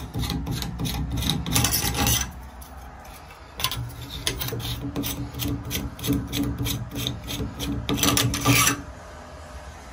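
Hands and metal trim of a shower valve scraping and rubbing in short, irregular strokes. It is loudest in two spells, around a couple of seconds in and near the end, over a steady low hum.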